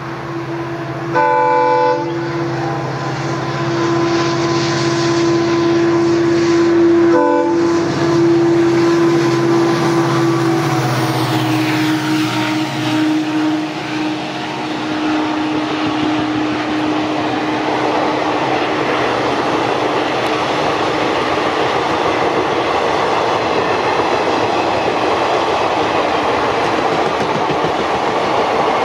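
EMD WDP4D diesel-electric locomotive sounding its horn in a short blast about a second in and a brief toot around seven seconds. Its 16-cylinder two-stroke engine drones under load up a gradient, and the engine note drops in pitch as it passes. The passenger coaches then roll by with steady wheel clatter.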